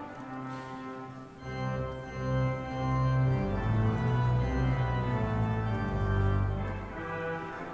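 Organ playing a hymn in sustained chords. Deep bass notes come in about a second and a half in, filling out the sound, and it eases off near the end.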